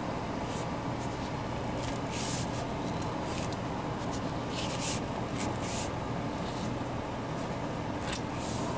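Short scraping rustles from an old tractor's steering shaft and column being worked, with a sharp metallic click about eight seconds in, over a steady background hiss.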